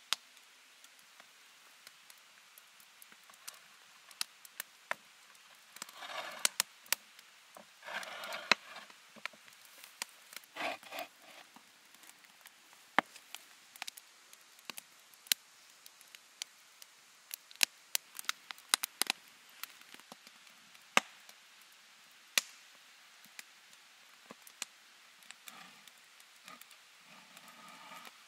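Wood fire crackling in a stone bake oven: scattered sharp pops and snaps at irregular intervals, with a few brief rustling noises in the first half.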